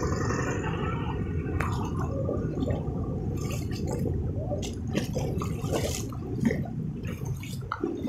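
Feet wading through shallow floodwater, sloshing and splashing unevenly as the water is stirred with each step.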